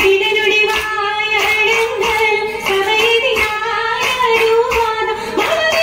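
Girls singing a Mappila song in chorus for an Oppana dance, with rhythmic hand claps keeping time.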